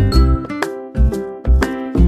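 Background music: a bright keyboard tune with chiming notes over a steady bass beat.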